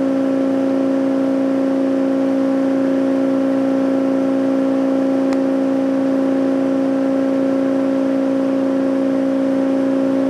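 Hyd-Mech H-40 horizontal band saw running under power: a steady, even machine hum with a strong low tone, with one faint click about halfway through.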